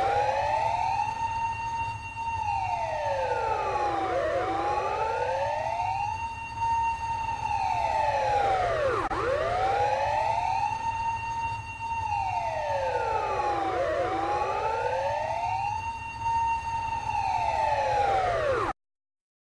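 Ambulance siren wailing, its pitch rising and falling slowly about every five seconds, with a second wail overlapping out of step and a low steady rumble underneath. It cuts off suddenly near the end.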